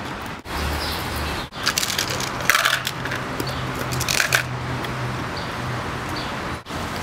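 Ice cubes being crunched between the teeth, loud and close, with a few sharp crunches in a row.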